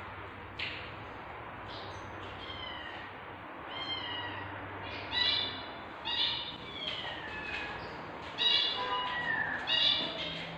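Newborn kittens mewing: a string of short, high-pitched cries, several falling in pitch, growing louder and more frequent in the second half.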